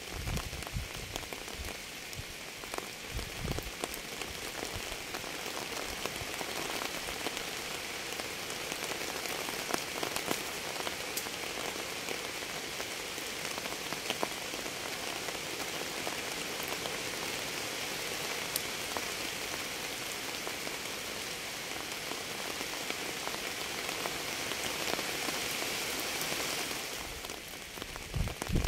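Steady rain falling on a surface, a dense patter with individual drops ticking through it; it eases slightly near the end.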